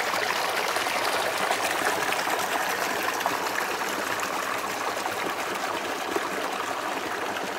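Small mountain stream fed by snowmelt runoff, water trickling and splashing steadily over rocks.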